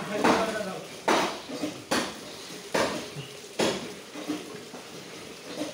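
Butcher's knife strokes, sharp and repeated about once a second, as the blade slices a cow's hide away from the carcass.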